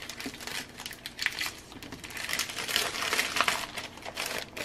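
Paper rustling with many short, irregular taps and clicks as printed cards and a sticker packet are sorted by hand on a wooden tabletop.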